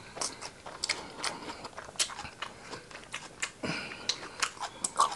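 A person chewing food close to the microphone: irregular wet smacks and clicks from the mouth, a few per second.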